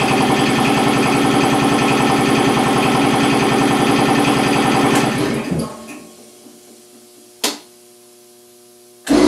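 10 hp electric air compressor running with a rapid, even pumping beat, then shutting off about five and a half seconds in and coasting down. A steady electrical hum remains, with one sharp click, and near the end the compressor starts again suddenly against 175 PSI on its pistons, because its electric unloader valve is not hooked up.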